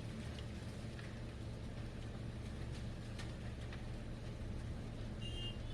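A heavy engine running steadily with a low drone, with a few faint ticks over it and a brief high two-note chirp near the end.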